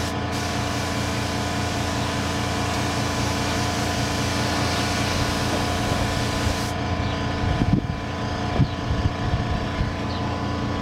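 Air spray gun hissing steadily as it sprays paint, cutting off sharply about two-thirds of the way in. An air compressor hums steadily underneath, and a few knocks come near the end.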